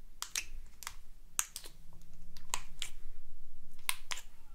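Sharp, irregular clicks, about three a second, as long acrylic fingernails poke and press soft glitter slime in a plastic tub. The slime is sold as a clicking, crunchy slime.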